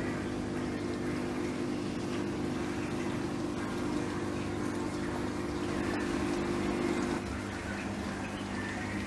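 Reef aquarium pumps humming steadily over the rush of circulating water. About seven seconds in, the hum changes tone and drops a little.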